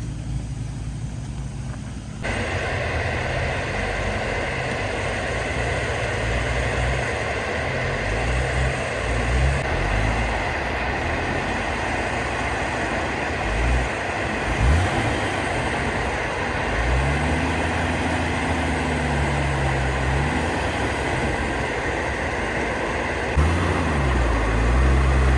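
Off-road 4x4's engine revving up and down as it crawls over a trail obstacle, over the steady noise of a loud train passing. The train noise comes in suddenly about two seconds in.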